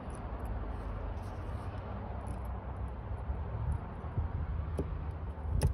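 Pliers clicking against a small metal retaining ring as it is worked onto a clutch master cylinder. A few small clicks come in the second half, the sharpest just before the end, over a steady low background rumble.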